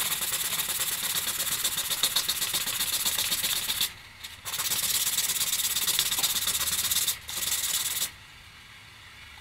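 A plastic propeller blade rubbed back and forth on sandpaper, taking weight off one side of the blade to balance the prop. It comes in three spells of fast rasping strokes with short breaks about four and seven seconds in, and stops about eight seconds in.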